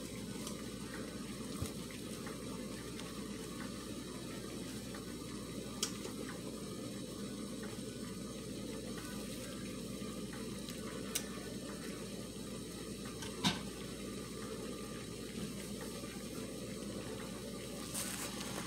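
Steady low rushing kitchen noise, with a few faint clicks and taps scattered through it.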